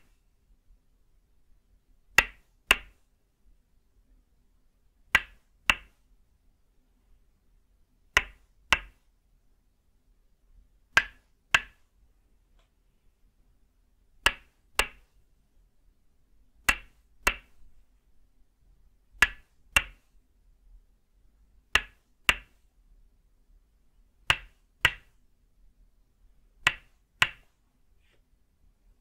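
Tok sen massage: a wooden mallet (khon) striking a wooden peg (lim) held against the body, giving sharp wooden clacks. The strikes come in pairs about half a second apart, a pair every two and a half to three seconds.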